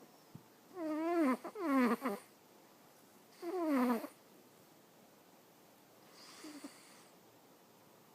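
Sleeping Singapura cat snoring: pitched, wavering snores, the first two close together in the first two seconds, another just before four seconds in, and a faint one about six and a half seconds in.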